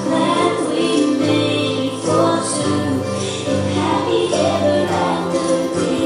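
Music with voices singing, sounding like a choir or group of singers, held notes shifting in pitch over accompaniment.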